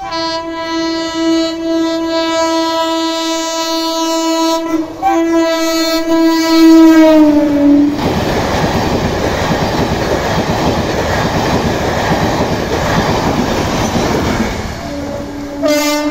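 Passenger train horn sounding a long blast, briefly broken, that drops in pitch as the train passes close by. This is followed by the loud rush and wheel clatter of the coaches going past. Near the end another train horn starts up.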